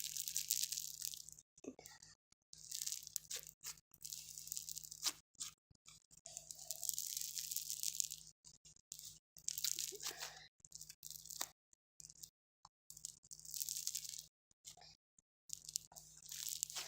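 Foam slime squeezed and stretched by hand, its foam beads crackling and crunching in spells of a second or two with short silent gaps between.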